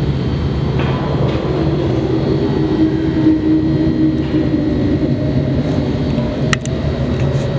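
A loud, steady low rumbling drone with a held hum in it, and a single sharp click near the end.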